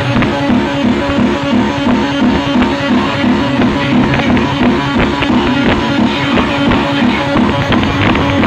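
Loud music played through a DJ box sound system, with a low note pulsing two to three times a second.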